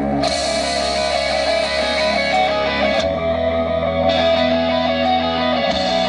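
Rock music with distorted electric guitar and no vocals, played loud through a car stereo with a Kicker L5 10-inch subwoofer. The chords change about every three seconds.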